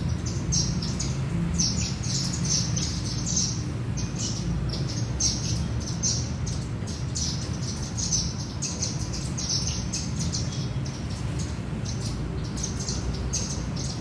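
A flock of Indian silverbills chirping, many short high calls in quick succession and overlapping, over a steady low rumble.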